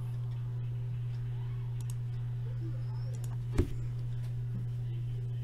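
Steady low hum with a few faint clicks and one sharp thump about three and a half seconds in.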